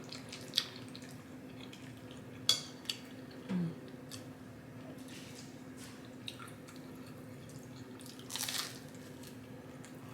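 Close-miked eating: a few sharp clicks of a fork against a plate and soft wet mouth sounds, with a brief louder noisy sound about eight and a half seconds in. A faint steady hum runs underneath.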